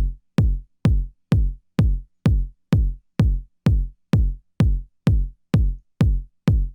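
Make Noise modular synthesizer (Black and Gold Shared System) playing a steady electronic kick-drum-like pulse: each hit a sharp click and a short, deep, decaying boom, a little over two hits a second with silence between them.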